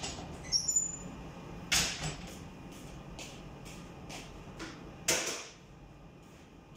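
Kitchenware being handled: a clink of dishware less than a second in, then two short scraping sounds, with light ticks and taps between.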